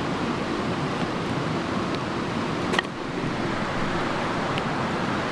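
Rushing mountain creek cascading over boulders: a steady rush of water, with one sharp click about three seconds in.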